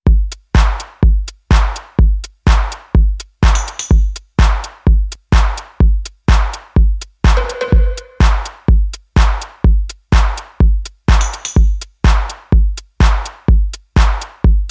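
Opening of an electronic house track: a drum-machine kick drum on every beat, about two a second, with short clicky hits between the kicks. Brief higher percussion flourishes come a few seconds in and again near the end, and a short held tone sounds about halfway through.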